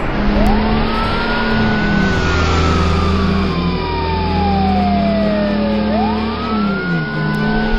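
Wailing emergency-vehicle siren sound effect: it sweeps up quickly, falls slowly for several seconds, then sweeps up again about six seconds in, with vehicle engine noise running underneath.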